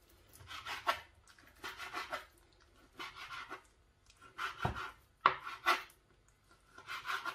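Kitchen knife slicing raw chicken breast into cubes on a plastic cutting board: six short runs of cutting strokes, with a sharp knock of the blade on the board about five seconds in.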